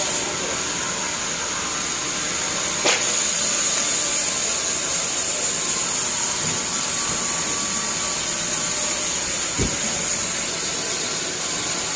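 Sawmill band saw running steadily through a large teak log, with a sharp click about three seconds in and a low knock about ten seconds in.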